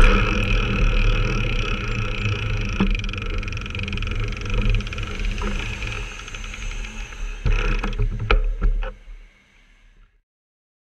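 Road traffic with a vehicle engine running steadily, with a few sharp clicks and knocks near the end before fading out to silence.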